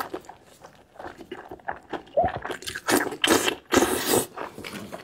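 Close-miked wet eating sounds of a person chewing spiced sheep's head meat: irregular smacks, squelches and slurps, busiest about three to four seconds in.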